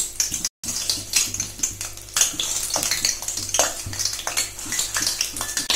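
Chicken kofta balls deep-frying on a low flame in oil in an iron kadai: dense, steady sizzling and crackling with many sharp pops. The sound cuts out for a moment about half a second in.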